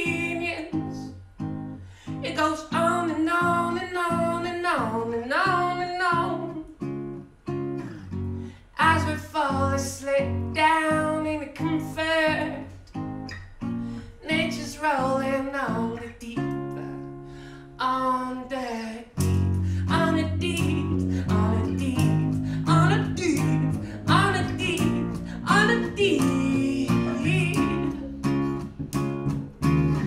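Live acoustic band performance: a man singing over a strummed acoustic guitar and an electric bass. The singing drops out briefly for a held chord a little past halfway, and the bass comes in fuller after that.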